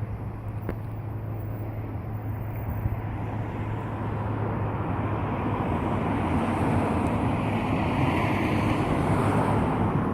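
Wind buffeting the microphone over a steady outdoor rumble, which swells louder through the second half and eases near the end.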